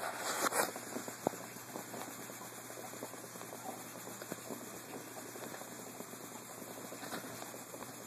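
Cloth rustling against the phone's microphone, then one short, faint hiccup from a small child about a second in, over low steady hiss.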